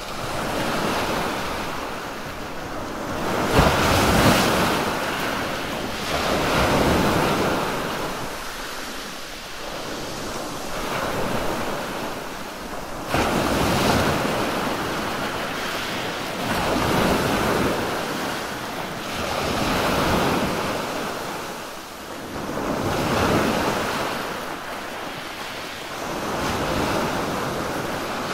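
Sea waves breaking and washing up onto a sandy beach, the surf swelling and falling back every three to four seconds.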